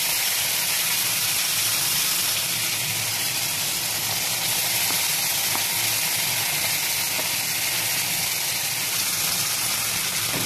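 Tomato pieces sizzling in hot oil in a metal wok. They have just been added to the oil and give a steady frying hiss.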